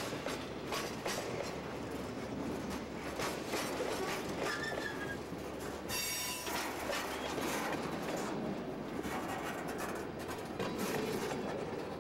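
Freight cars rolling past at close range, steel wheels clacking rhythmically over the rail joints. Brief wheel squeals come about four and a half seconds in and again, louder and shriller, around six seconds in. The rumble starts to fall away near the end as the last car clears.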